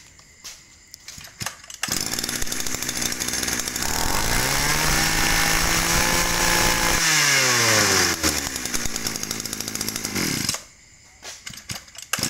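Small two-stroke Tanaka grass trimmer (brush cutter) engine starting up about two seconds in, revving up to a high steady speed, then dropping back to idle and shutting off near the end, with light handling clicks before and after.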